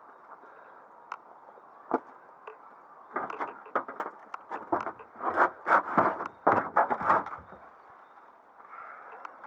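Steady rush of a storm-drain creek's flowing water, with a few scattered clicks, then about three seconds in a run of loud, irregular crunching knocks lasting some four seconds.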